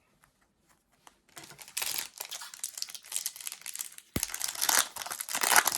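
Foil trading-card pack wrapper crinkling as it is torn open, starting about a second in, with a single knock about four seconds in.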